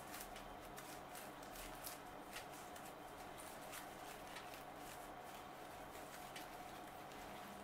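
Faint, irregular rustling and small clicks of a ribbon bow and fir greenery being handled as the bow is pushed into the arrangement, over a steady faint hum.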